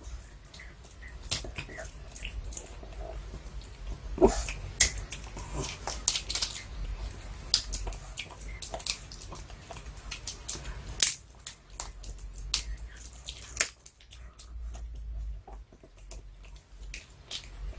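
Pomeranian gnawing and crunching a duck cartilage chew treat: irregular crunches and clicks of teeth on the chew, picked up close by an earphone microphone lying on the floor beside the dog.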